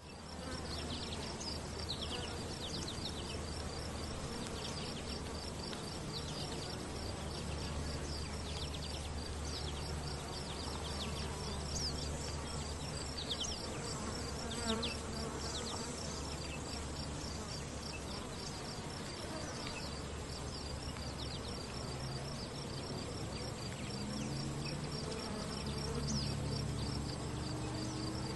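Flies and other insects buzzing close by, a steady low drone that shifts in pitch, with a rapid high trill and short falling high notes running throughout.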